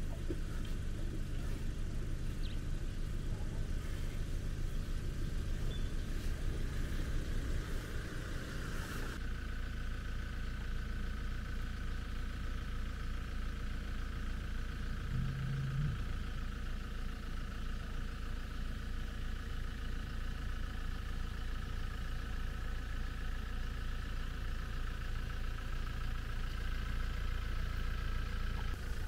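Vehicle engine idling steadily, a continuous low hum whose tone shifts about nine seconds in.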